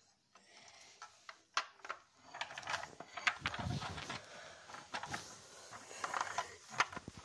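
A small plastic toy car being handled and moved about by hand, with scattered plastic clicks and rubbing.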